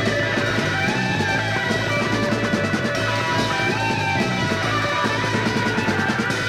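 Rock recording: a full band plays, with guitar carrying melodic lines over a steady beat.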